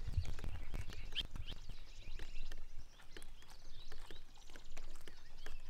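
Outdoor sounds: a run of irregular soft clicks and crackles, with a few short high chirps about a second in.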